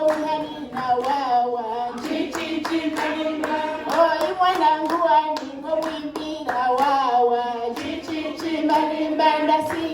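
A group of women singing a traditional song together, accompanied by steady rhythmic hand clapping.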